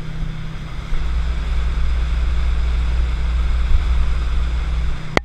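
Tow boat's engine running steadily at speed, with a heavy low wind rumble on the microphone from about a second in, and a sharp click just before the end.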